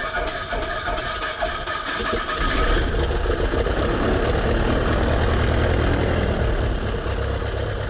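Super Decathlon's four-cylinder piston engine and propeller running steadily. About two and a half seconds in, the sound grows louder and deeper.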